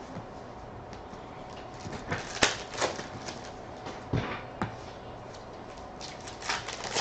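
Baseball trading cards being flipped through by hand, with a few sharp card clicks and snaps. Near the end a card pack's wrapper is pulled open.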